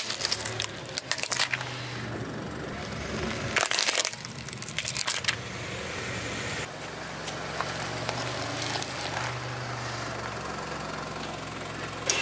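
A car tyre rolls over a toy car made of plastic building blocks, the blocks cracking and snapping under the weight in several sharp cracks, the loudest about four seconds in. The car's engine hums low and steady underneath.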